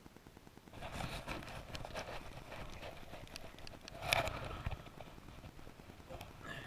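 Handling noise from a hand fumbling at a body-worn camera: a run of clicks, scrapes and rubbing that starts about a second in, loudest about four seconds in.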